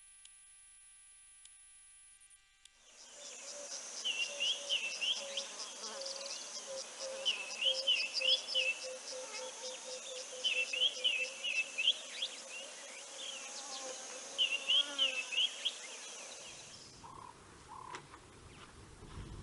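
A faint steady electronic hum, then outdoor daytime ambience: a rapid high insect trill, a bird repeating a short warbled phrase about every three seconds, and a lower call pulsing several times a second. Near the end the ambience changes to a low wind-like rumble with two short low bird notes.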